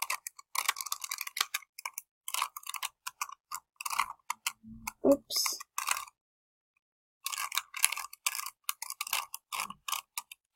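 A tiny plastic Rubik's Cube being twisted by hand: rapid, irregular clicking and clacking of the layers turning, in short flurries, stopping for about a second a little after the middle.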